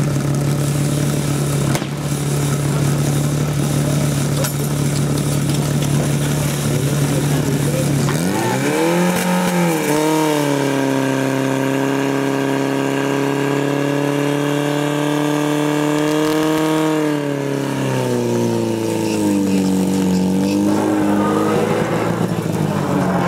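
Portable fire-sport pump engine running hard. About a third of the way in its pitch climbs and wavers, holds high for several seconds as it pumps water out through the hoses, then falls back.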